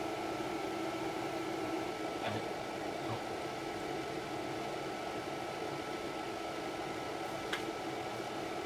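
A small electric fan running steadily, with a steady hum and a faint high whine. Two light clicks, about two seconds in and near the end.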